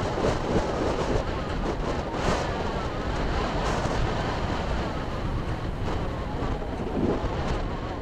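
Gale-force wind buffeting the microphone: a heavy, gusting rush of noise, strongest in the low end.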